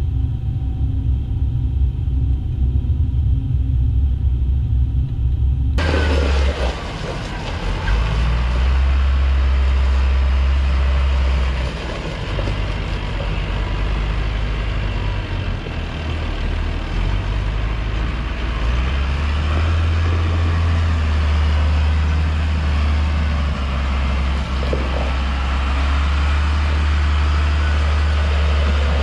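Heavy farm machinery engines running steadily with a deep rumble; about six seconds in the sound changes abruptly to a noisier, fuller machine sound over the same low drone.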